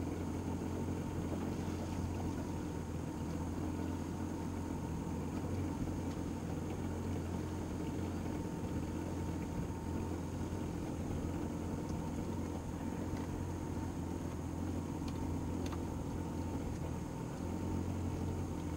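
A boat's outboard motor idling steadily, a low even hum.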